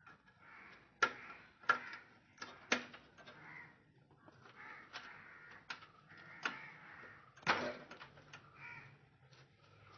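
A series of sharp clicks and knocks, irregularly spaced, the loudest about a second in and again near the end.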